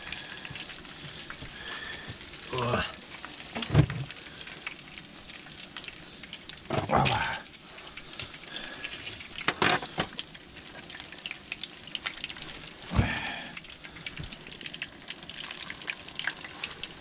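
Pieces of pike sizzling as they fry in oil in a pan, with a few sharp knocks of tongs and a knife against the pan and tray as the fried pieces are lifted out.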